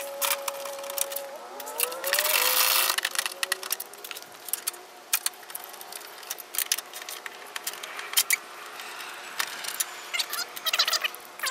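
Ratchet clicking in quick runs as bolts are backed out, played back sped up. A thin steady tone slides upward about two seconds in, and a loud rushing noise follows briefly.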